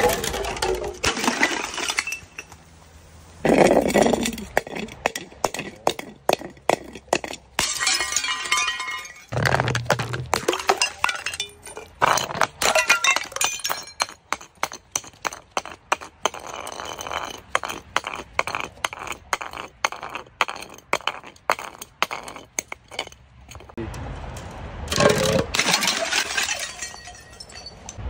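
Several plastic bottles in turn tumbling down concrete steps: long runs of rapid knocks and clattering, with a few louder crashes.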